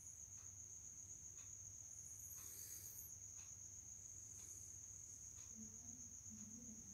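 Near silence: room tone with a faint steady high-pitched tone, a low hum and faint ticks about once a second.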